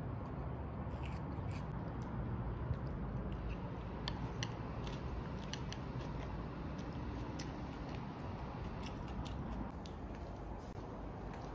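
Eating with wooden chopsticks from a plastic takeaway tray: scattered light clicks and taps of the chopsticks on the plastic, with chewing, over a steady low room hum.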